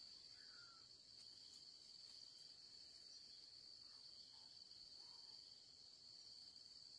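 Faint, steady high-pitched drone of insects such as crickets, with a few faint short chirps, from a bird, over it.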